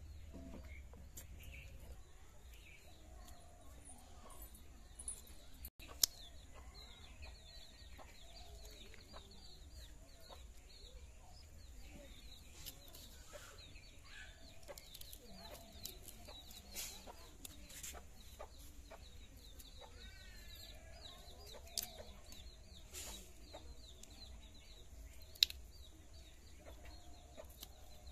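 Hens clucking softly in the background over faint scraping of a sickle blade across goat-leg hide, with three sharp clicks.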